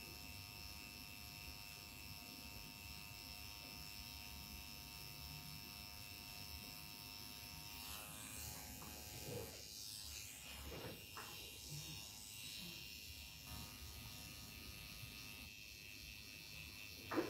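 Permanent makeup pen with a 3-needle cartridge running with a faint, steady buzz while tattooing eyeliner along the lash line. About eight seconds in its tone changes, and a few light knocks follow, the loudest near the end.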